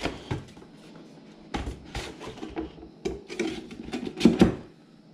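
Cardboard packaging boxes being handled and set down on a wooden desk: scattered light knocks and scrapes with rustling between them, the loudest pair a little over four seconds in.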